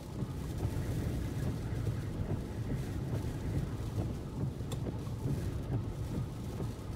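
Strong hurricane wind buffeting the microphone in a steady, low rumble that rises and falls with the gusts.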